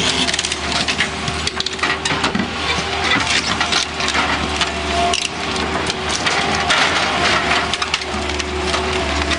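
Wooden house framing cracking, splintering and crunching as a tornado-damaged wall is pulled down, with many sharp snaps throughout. An engine runs steadily underneath.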